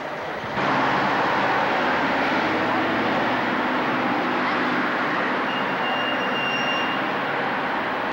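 Town street ambience: a steady run of traffic noise mixed with indistinct voices. It starts abruptly about half a second in.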